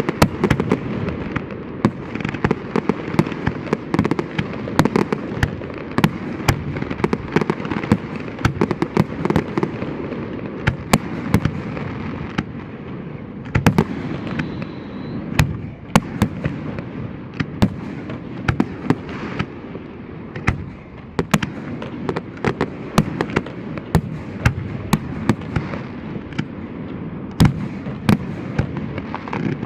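Fireworks display: many sharp bangs in quick succession over a continuous rumble and crackle of bursting shells, with a brief whistle about halfway through.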